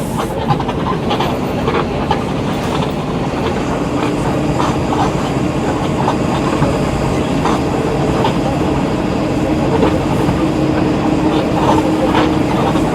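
Volksbus 17.230 EOD bus engine running under way, a steady drone that swells a little near the end, with frequent clicks and rattles from the vehicle and road.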